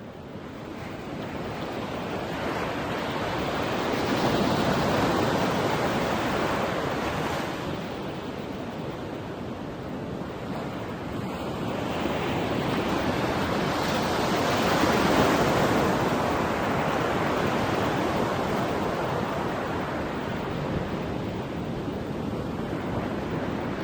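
Ocean surf washing onto a beach: a steady rush of waves that fades up at first, then swells twice, about five seconds in and again about fifteen seconds in.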